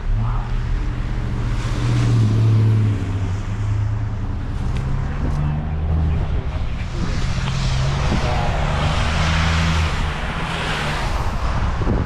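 Street traffic: a motor vehicle's engine running close by with a steady low hum that rises in pitch about halfway through, and a car passing with a hiss that swells and fades near the end.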